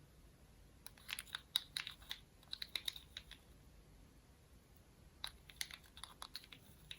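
Slime being kneaded and pressed by hand, giving quick runs of small sharp clicks and pops: one run about a second in, another near the end.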